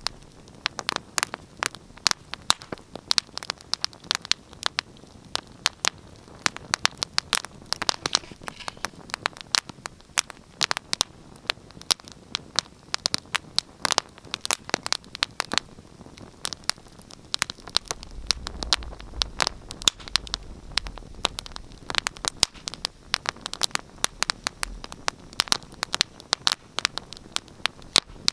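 Wood fire in a fireplace crackling, with frequent irregular sharp pops and snaps over a soft hiss. A low rumble swells briefly a little past the middle.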